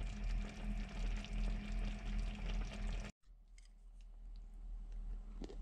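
Kimchi hot pot bubbling and crackling in an earthenware donabe over a gas burner, with a low steady hum underneath. It cuts off about three seconds in, leaving quiet room tone and a few faint clicks.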